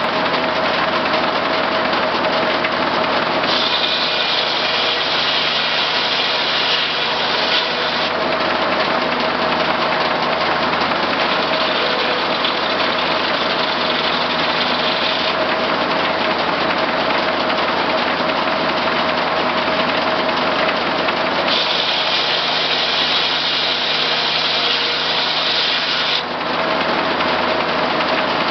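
Case six-cylinder power unit running steadily, driving a J. A. Vance circular sawmill. Three times a higher hiss joins in for about four seconds: the saw blade cutting through the log.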